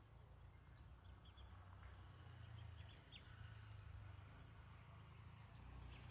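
Near silence: faint rural outdoor background with a steady low rumble and a few faint, short high chirps.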